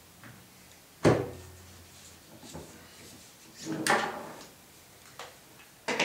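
A Milwaukee 5625 router's motor being worked out of its base: handling knocks and scrapes. A sharp knock comes about a second in, a longer scraping clunk near the middle, and lighter clicks and a knock near the end.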